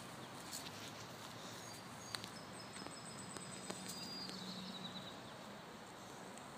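Faint outdoor ambience: a steady soft hiss with a few scattered small ticks and a faint high thin tone near the middle.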